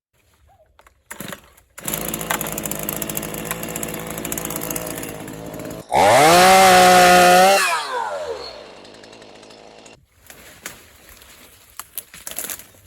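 Stihl MS 212 two-stroke chainsaw running, then revved hard at about six seconds for a second and a half before its revs fall away; the engine stops about ten seconds in.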